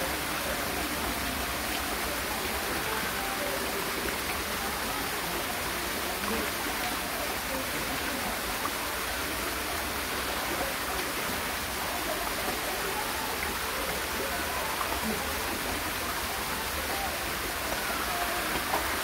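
Steady rush of moving water in a koi pond, unbroken throughout, with faint voices underneath.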